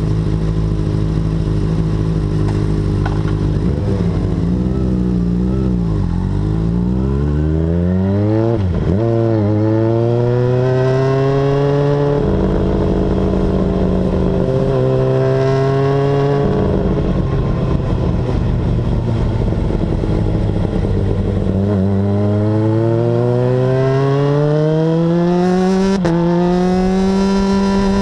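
Kawasaki ZX-6R inline-four sportbike engine idling, then revved up and down a few times before pulling away and accelerating, with its pitch climbing and dropping at each upshift. It holds a fairly steady speed through the middle, then accelerates again near the end with another upshift.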